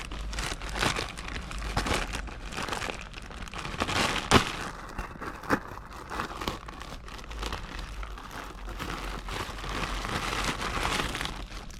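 Packaging crinkling and rustling as it is opened and handled, with irregular crackles and a couple of sharper snaps about four and five and a half seconds in.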